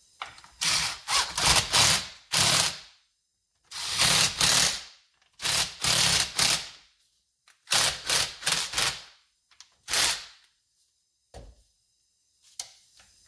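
Ridgid cordless power driver with a socket extension, running in five short bursts of about a second each with pauses between, driving fasteners back into a chainsaw's housing.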